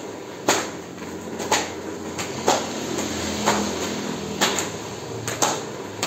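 Steady rain falling on a tiled courtyard, with a sharp tap about once a second.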